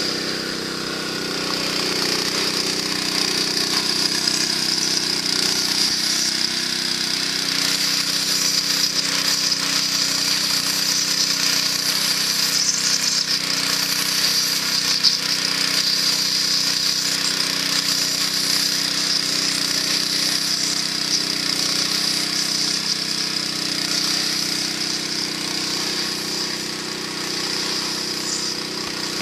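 Small petrol engine water pump running steadily at constant speed, pumping water into a flooded rice paddy, with a steady high-pitched hiss over the engine note.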